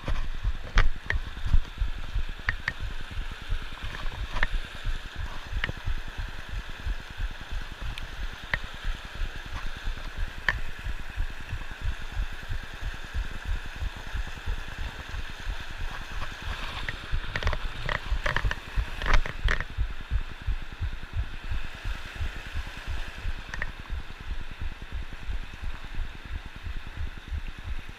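Mountain creek running and gurgling over rocks, a steady rushing sound. Under it is a low rumble on the microphone, and a cluster of sharp clicks comes about two-thirds of the way through.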